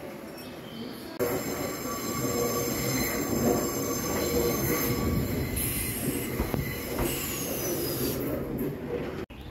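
Nankai 2300 series two-car train pulling into a platform, its wheels squealing in several steady high tones on the tight curve of the mountain line. The sound starts abruptly about a second in, and two high falling whines come as the train slows.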